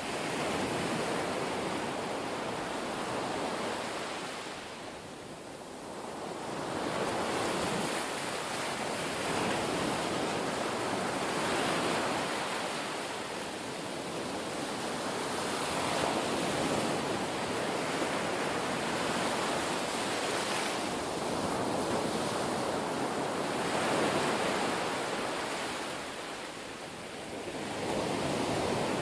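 Ocean surf: waves washing in and drawing back as a steady rushing noise that swells and ebbs every several seconds.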